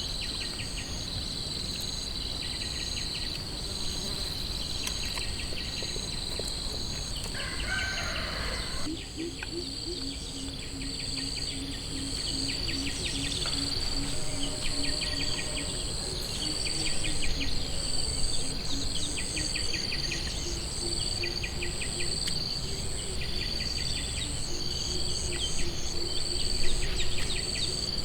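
A chorus of insects, crickets among them: a steady high trill with several rhythmic chirp trains repeating over it. From about nine seconds a lower, pulsing drone joins in.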